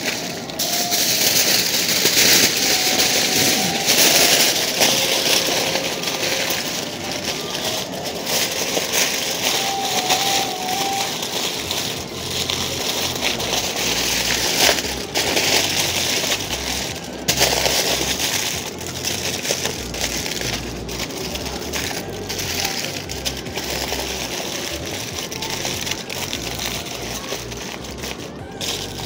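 Aluminium foil crinkling and crackling continuously as it is folded, scrunched and pressed tight by hand into a wrap.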